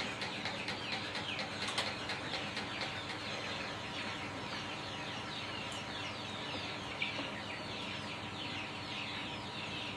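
Barnyard fowl and small birds chirping and clucking, a dense, continuous chatter of many short falling calls, over a faint steady hum.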